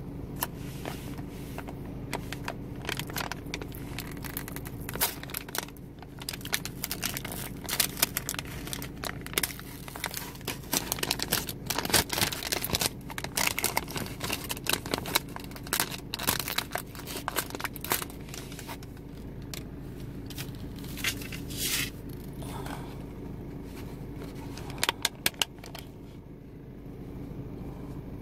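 Clear plastic salad packaging crinkling and crackling as the lid, cups and a plastic bag of tortilla strips are handled and opened. The crackles come in quick runs, busiest through the middle, over a steady low hum.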